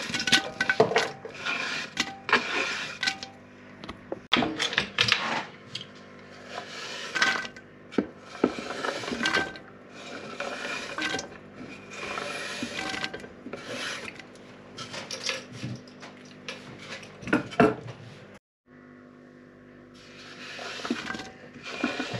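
Chopped vegetables being scraped by hand off a wooden cutting board into a metal kazan: repeated rough scrapes of hand and board with pieces tumbling into the pot, over and over.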